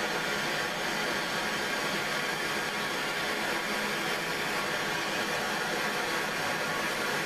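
Handheld gas torch burning with a steady hiss while heating a half-inch copper tubing joint for soldering.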